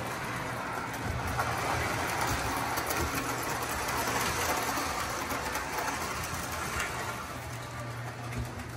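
Lionel O-gauge toy steam locomotive and tender running on three-rail track: a steady whirr and rumble of motor and wheels, with a low hum that comes up near the end.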